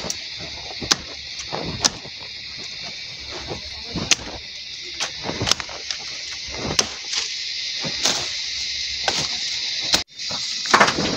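Tall grass being cut and pulled by hand for fodder: sharp snaps of stalks coming irregularly, about once a second, with rustling leaves and a steady high hiss underneath.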